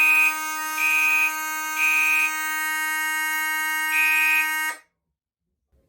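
Fire alarm notification horns sounding together for about five seconds, then cutting off sharply. A steady horn tone runs throughout. Over it, a Gentex Commander 3 mechanical horn blasts in temporal code 3: three short blasts, a pause, then a fourth. The horn is self-coded to code 3, so it keeps that pattern in walk test even though the panel programs march time.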